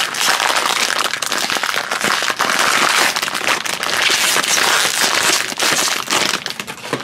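Foil blind-bag wrapper crinkling and tearing open in the hands: a dense, continuous crackling.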